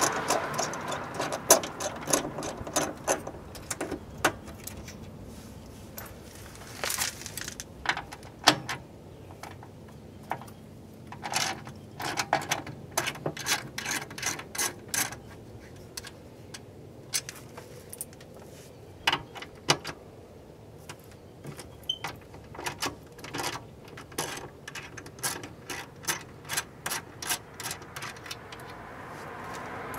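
Socket ratchet clicking in short uneven runs as the 10 mm bolts holding a car's window regulator are backed out, with light metallic clinks of tool and bolts between.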